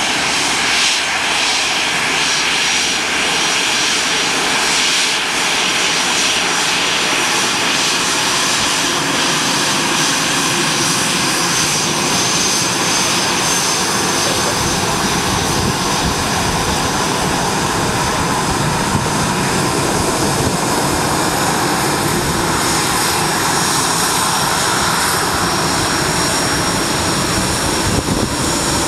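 Airbus A320 jet engines at taxi power as the airliner rolls slowly past: a steady high whine over a broad rush, with the low rumble filling in about halfway through as the aircraft draws level.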